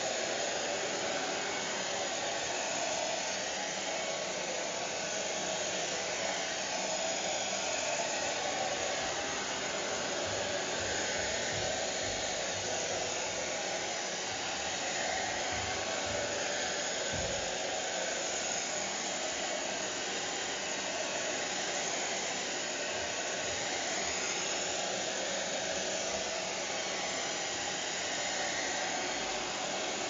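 Vintage hair dryer running steadily, an even, continuous rush of fan and airflow whose tone wavers slowly.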